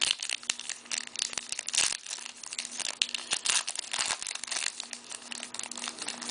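Hockey card pack wrapper being crinkled and torn open, an irregular run of crackling and rustling.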